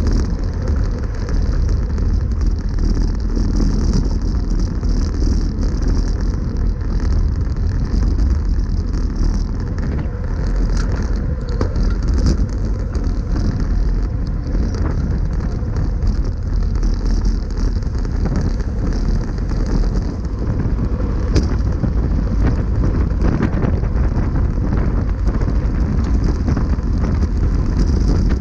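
Steady wind rush on the microphone of a camera mounted on a road bike riding at speed, with tyre noise on a concrete road.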